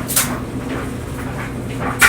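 Clothes dryer running with a steady hum as the load tumbles in the drum. There is a knock as something hits the drum just after the start and another near the end.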